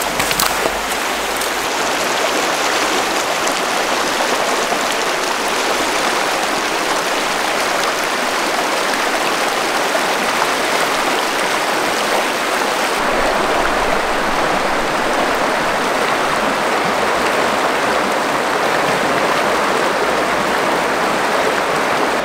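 River water rushing over rocks in a shallow riffle: a steady, even rush.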